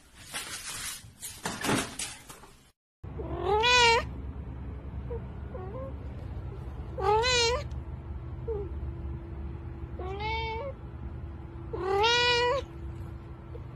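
A domestic cat meowing four times, a few seconds apart, each meow bending up and then down in pitch, over a steady low hum. In the first few seconds, before the meows, there is a stretch of noise that stops suddenly.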